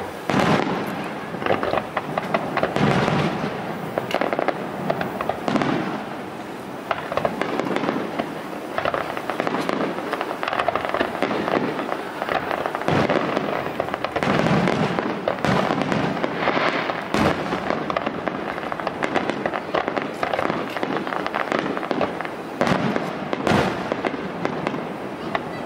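A barrage of aerial firework shells bursting one after another: loud booms, many in quick succession, with constant crackling between them.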